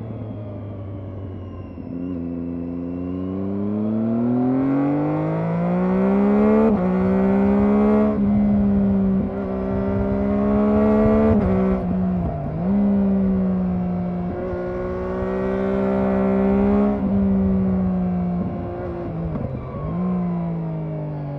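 Triumph Daytona 675R's inline three-cylinder engine under way. The revs fall at first, then climb with a few quick steps. They hold steady for long stretches, with two brief dips in revs that recover, and fall off again near the end.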